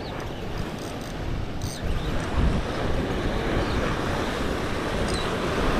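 Ocean surf washing and breaking over rocks below a pier, with wind buffeting the microphone as a steady low rumble.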